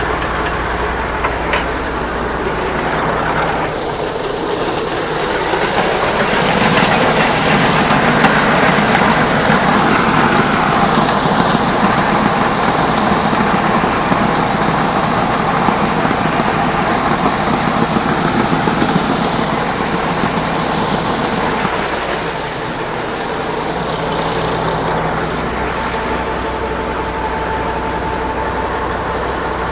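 Farm machine engine running steadily with a rattling mechanical clatter. It grows louder about six seconds in, holds for some fifteen seconds, then eases back.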